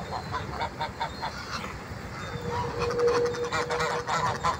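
Geese honking and gabbling in quick short calls, growing denser in the second half. A steady whistle-like tone is held for about two seconds in the middle.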